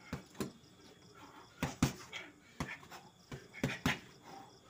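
Fists punching a heavy leather-style Everlast hanging bag: a run of sharp thuds, several landing in quick one-two pairs.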